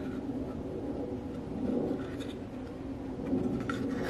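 Light scratching and rubbing as a Kydex holster with a plastic Safariland QLS fork is turned over in the hands, with a few faint ticks.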